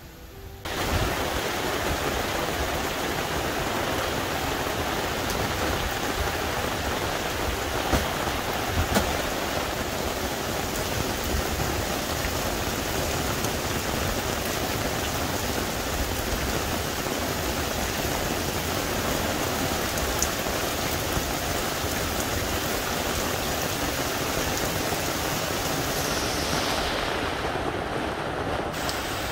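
Steady rain falling on grass and trees, an even hiss that starts suddenly about a second in, with a couple of louder clicks around eight and nine seconds in.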